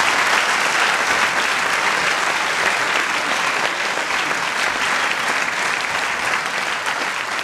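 Audience applauding steadily after a stand-up comedy set, slowly easing off.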